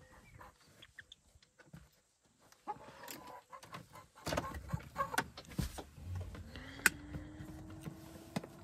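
A hen clucking softly in the car, with a few clicks as the key is turned. About six seconds in, a steady hum starts, rising briefly and then holding, as the ignition is switched on and the car's electrics come alive.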